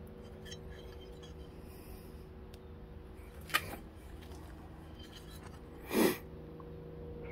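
Low steady hum with two brief noises: a short sharp click about three and a half seconds in, and a louder short rushing sound about six seconds in.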